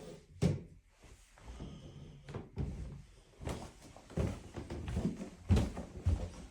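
A series of dull thumps and knocks, the loudest about half a second in and again about five and a half seconds in.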